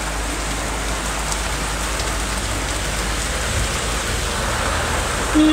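Heavy rain falling steadily on a street and pavement, an even hiss with scattered drop ticks. A short steady tone cuts in at the very end.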